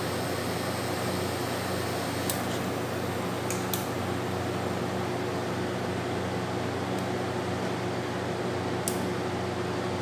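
TCL window-type air conditioner running, its compressor giving a steady low hum, now started again after the thermostat was cleaned and retested. A few light clicks come over it from the thermostat and switch being handled.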